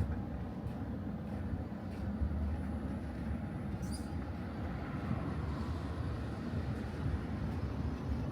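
Tram running along the track, a steady low rumble of wheels on rails and running gear with a few light clicks. A brief high squeak comes about four seconds in.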